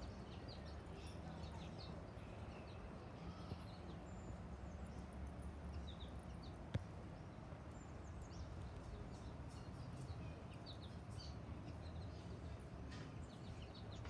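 Small songbirds, finches among them, chirping in short high calls scattered throughout, over a steady low background rumble. One sharp click about seven seconds in.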